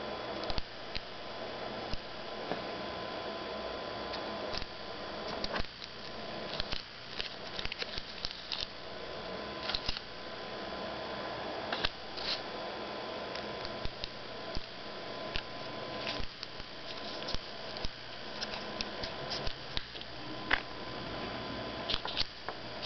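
Scattered soft clicks and taps as a knife slices through chocolate peanut butter cups in their paper wrappers and fingers press them on a tabletop, over a steady room hum with a faint high whine.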